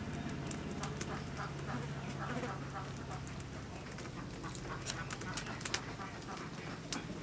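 Poultry calling in the background, with short sharp clicks and smacks of someone chewing, a couple of louder ones a little past the middle and near the end.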